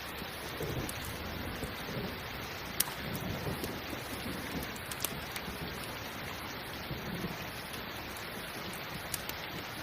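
Steady rain hiss with a wood fire crackling, a few sharp pops standing out, and low rumbles swelling now and then.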